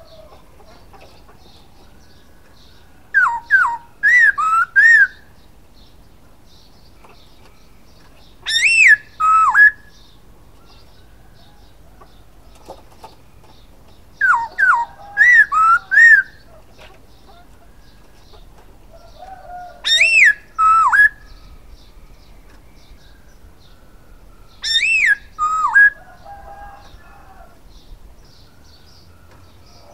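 Caged black-throated laughingthrush (poksay Hongkong) singing loud, clear whistled phrases. Each phrase is two to four looping notes that rise and fall, repeated about every five to six seconds, with faint chatter between phrases.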